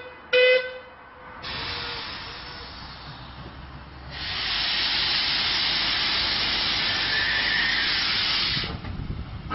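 Saddle-tank steam locomotive gives a short whistle toot about half a second in, then steam hisses out of its cylinder drain cocks, growing loud about four seconds in and cutting off shortly before the end.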